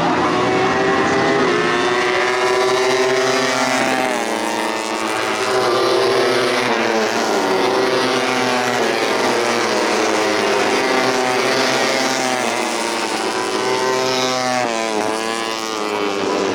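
Several tuned four-stroke 150cc underbone racing motorcycles revving hard at once, their engine notes overlapping and rising and falling with throttle and gear changes, with sharp drops in pitch about four seconds in and again near the end.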